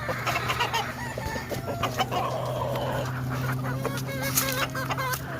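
Gamefowl chickens clucking, with a rooster crowing, over a steady low hum.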